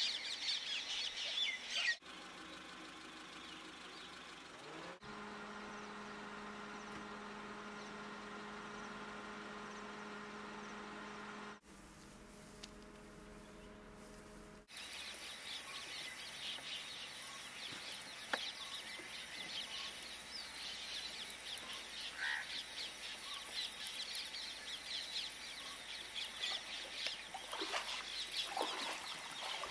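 Wild outdoor ambience that changes abruptly at several edit cuts: birds calling over a dense high chorus. For several seconds in the middle the chorus gives way to a steady low hum.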